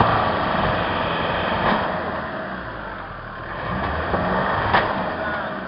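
Land Rover Defender engine working under load, its revs rising and falling, as the wheels churn through slush and broken ice. Two sharp knocks stand out, a few seconds apart.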